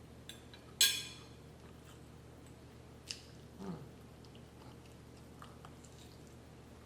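Close-up eating sounds: soft chewing and small mouth clicks. About a second in there is one loud ringing clink, like cutlery striking a plate, and a few seconds in there is a sharper click and a brief low falling hum.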